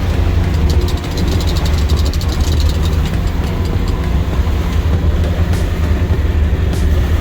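Boat engine running with a steady low rumble. From about half a second in, a fast, even run of clicks lasts for roughly two and a half seconds.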